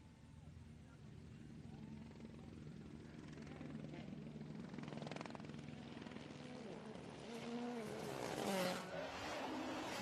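Rally car engine approaching and growing louder, its note rising and falling, loudest about eight and a half seconds in as it passes.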